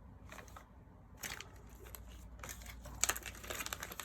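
Packaging being opened by hand, crinkling and rustling in irregular bursts that grow busier toward the end.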